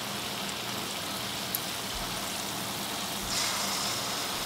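Hot oil sizzling steadily around balls of dough batter deep-frying in a pan. About three seconds in the sizzle grows louder and brighter as a fresh spoonful of batter goes into the oil.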